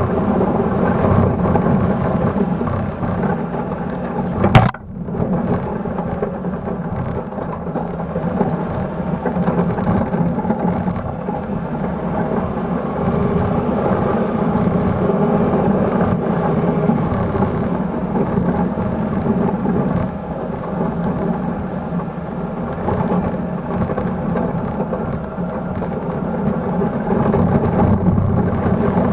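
Steady rushing rumble of snow being pushed and thrown off a 72-inch Eagle plow blade on a 1996 Suzuki Carry mini truck, mixed with the truck's engine running. One sharp knock about four and a half seconds in.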